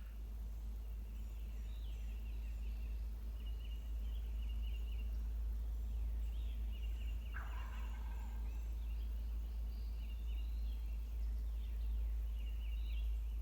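A wild turkey gobbler gobbles once, about seven seconds in, while small birds keep calling with short high trills over a steady low rumble.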